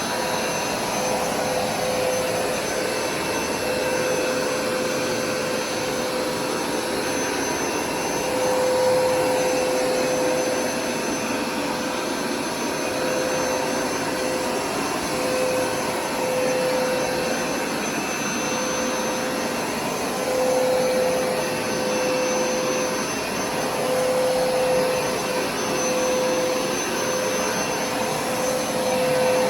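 Hoover carpet cleaner's motor running steadily with a constant whine, its loudness swelling and easing slightly every couple of seconds.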